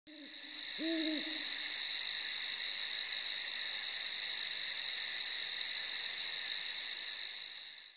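A steady, high-pitched insect trill, pulsing about ten times a second, with an owl hooting twice in the first second or so. The sound fades in at the start and stops at the end.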